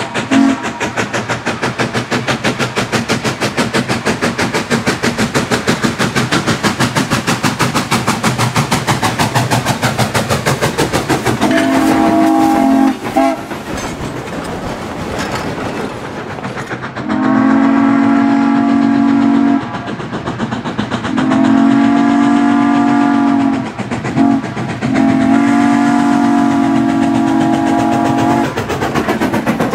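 Replica Texas & Pacific three-chime steam whistle on Denver & Rio Grande Western No. 493 blowing. The end of a blast right at the start and a short blast about 12 seconds in, then long, long, short, long: the grade-crossing signal. Under the first half runs a fast, even beat from the moving train.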